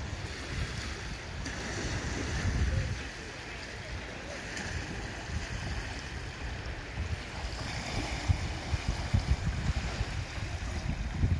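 Wind buffeting the microphone in irregular gusts, strongest about two seconds in and again over the last few seconds, over the steady wash of small lake waves lapping at the shore.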